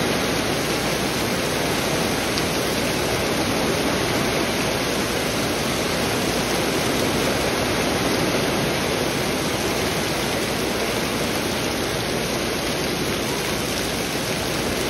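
Heavy rain pouring down onto a grass lawn: a steady, dense hiss of falling water that holds level throughout.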